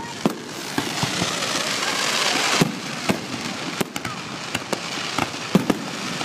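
Aerial firework shells bursting in a display: about a dozen sharp bangs at irregular intervals over a continuous hissing crackle that swells a couple of seconds in.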